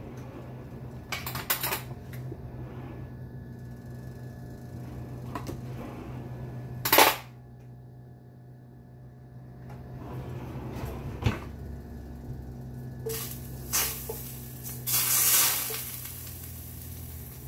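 Kitchen handling sounds: scattered clinks and knocks of utensils and containers, with one louder clatter about seven seconds in, over a steady low hum. Near the end a short hiss as butter goes into the hot pan.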